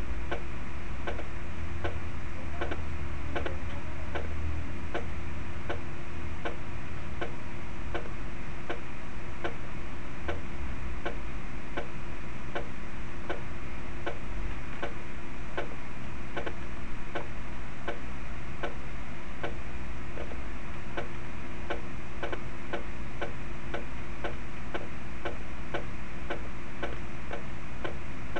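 Evenly spaced ticks of snare drum eighth-note strokes kept to a metronome at a slow tempo, from a stick-control exercise played back from the score, over a steady low hum.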